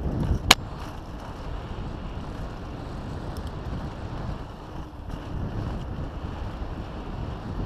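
Mountain bike ridden fast over a dirt trail and onto stone paving: tyres rumbling over the ground and wind rushing over the microphone, with one sharp clack about half a second in.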